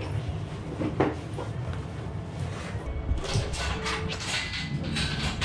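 A single sharp knock about a second in, then rustling and handling noise from about three seconds on, over a steady low room hum.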